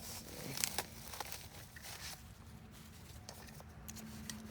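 Faint handling noise: a few light clicks and rustles, mostly in the first half, over a steady low hum.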